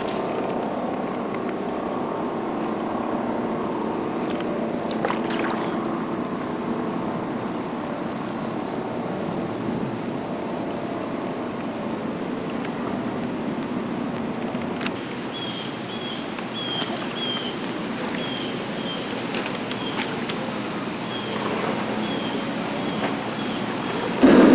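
A motor runs with a steady hum. In the second half a series of short high chirps repeats about once or twice a second.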